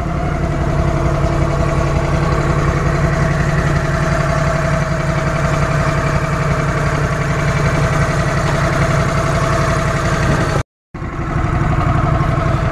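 Engine of a Toro utility vehicle with a dump bed, running steadily, with a short break near the end.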